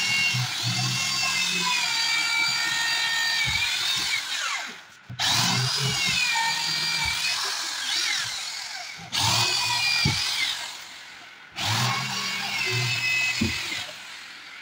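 Corded electric drill boring into a wooden door frame in four runs of a few seconds each, its motor whine wavering in pitch as the bit bites into the wood.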